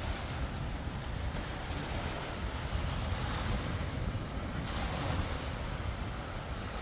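Sea waves washing on the shore, with wind buffeting the microphone in a steady rumble.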